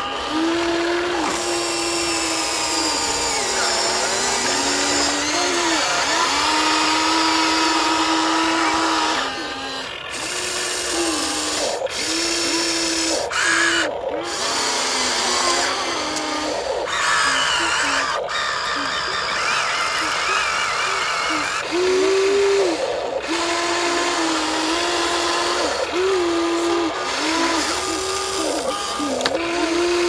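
Small electric motor of a remote-control toy vehicle whining, starting and stopping over and over, its pitch sagging now and then under load.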